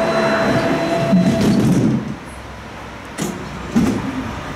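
Tram running on its rails, heard from inside the car: a steady motor whine and rumble that stops about two seconds in, leaving a quieter rolling sound, then two short knocks from the wheels about a second and a half later.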